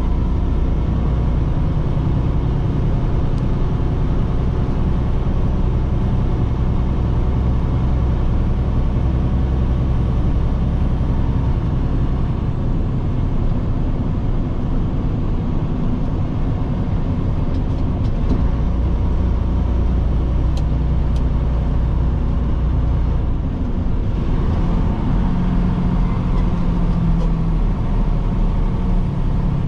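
Semi truck's diesel engine and road noise, heard inside the cab while cruising at highway speed. It is steady, with the engine note shifting about two-thirds of the way through.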